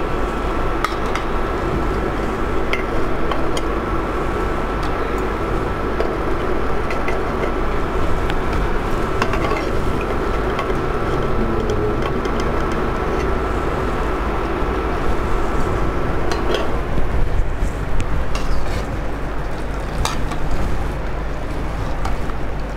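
Gujiyas sizzling in hot ghee in a nonstick pan while a metal slotted spatula clinks and scrapes against the pan, lifting them out and dropping them into sugar syrup. A steady hum with a faint high whine runs underneath and cuts off about 16 seconds in.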